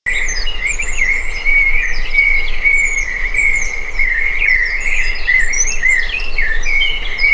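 Outdoor nature ambience: insects trilling in a steady, wavering drone, with small birds chirping in short, high, falling calls throughout.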